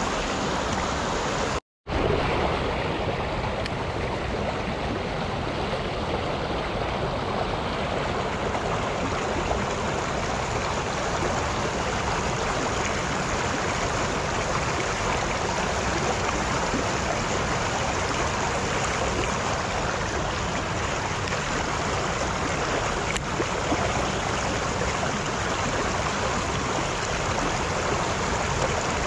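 Fast, shallow river current rushing over rocks: a steady, even rush of water. The sound drops out for an instant about two seconds in.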